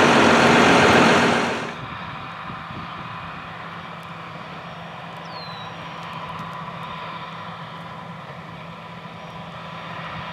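Loud machinery noise right beside a big square baler, cut off sharply about two seconds in. Then a John Deere 7230R tractor pulling a New Holland Big Baler 330 runs steadily at a distance through the field, with a faint steady high tone over the engine.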